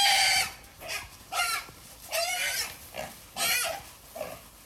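Large Black pigs squealing: a run of shrill, high-pitched squeals, about one a second.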